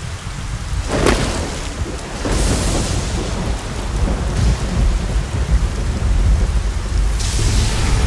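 Heavy rain pouring with deep, rumbling thunder, and a sharp crack about a second in.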